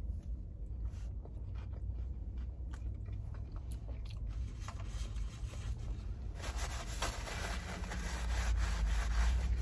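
Quiet chewing with small mouth clicks, then, from about six seconds in, a denser scraping and rustling as a fork digs into the takeout bowl of food. A low rumble runs underneath.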